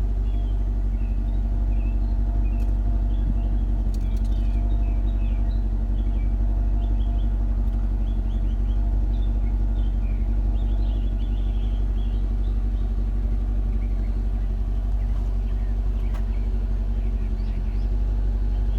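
Mercedes-AMG M156 6.2-litre V8 idling steadily. The engine has a light hydraulic lifter tick that the owner is trying to quiet with a MoS2 oil additive.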